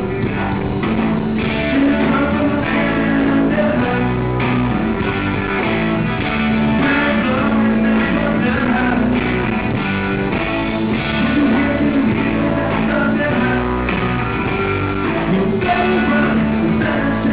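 Live rock band playing loudly: electric bass, guitar and drums, with a male lead singer on a handheld microphone.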